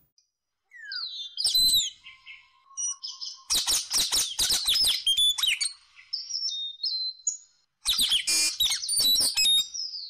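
Rainbow lorikeet calling with shrill chirps and harsher screeching calls in irregular bursts, loudest in two spells, one a few seconds in and one near the end.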